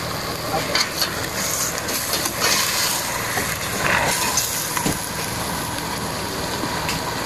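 Chopped chicken sautéing in a pot on a stove: a steady sizzling hiss, with a few short clinks and scrapes of a utensil between about one and five seconds in.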